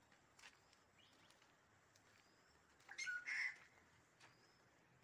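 Birds calling faintly: a few short, high chirps, and one louder call about three seconds in.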